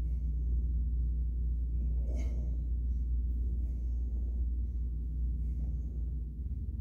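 Steady low hum, with one short, sharp sound about two seconds in.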